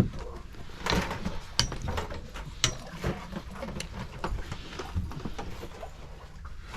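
Fishing reel being cranked, its gears clicking irregularly, with scattered knocks and two short high squeaks.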